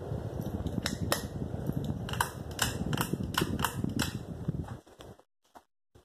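Home Depot Clarkston 44-inch ceiling fan running: a low, uneven rumble of moving air, with scattered sharp clicks that come thickest through the middle. The sound cuts off suddenly a little past five seconds.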